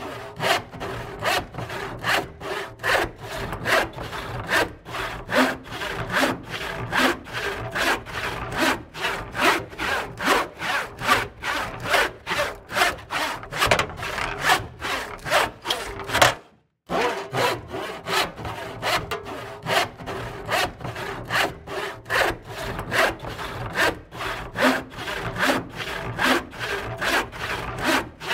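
Hand saw cutting wood with steady back-and-forth strokes, about two a second. It breaks off for a moment about halfway through.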